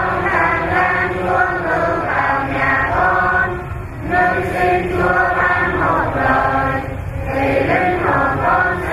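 Many voices chanting together in unison, a Catholic liturgical chant in held, sing-song phrases with brief pauses about four and seven seconds in.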